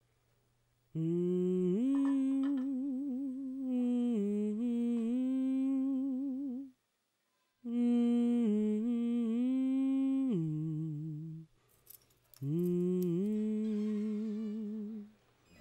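An unaccompanied voice humming a slow melody with vibrato, in three long phrases separated by short pauses, with a couple of faint clicks in the second pause.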